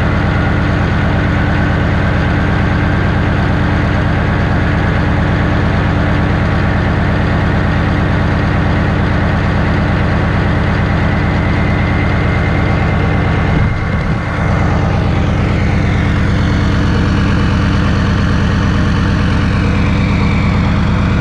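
Chevy 6.5L V8 turbo-diesel idling steadily with an even low beat, still cold after a −8 °F cold start, heard close to the tailpipe.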